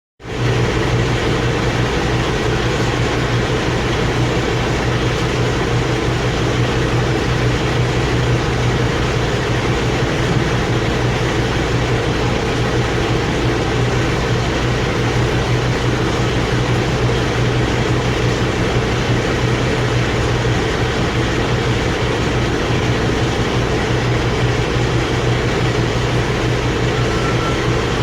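A steady mechanical drone: a low hum under an even hiss, unchanging in pitch and level.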